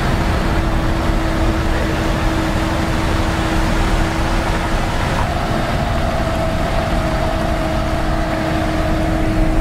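Dodge Ram 3500 pickup with a turbo Cummins diesel, driving on a gravel road and heard from inside the cab: a steady engine drone over a rumble of tyre and road noise.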